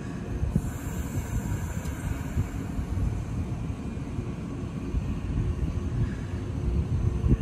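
Izu Kyuko 2100 series 'Resort 21' electric train pulling away from the platform: a low, steady rumble of its motors and wheels that grows a little louder toward the end.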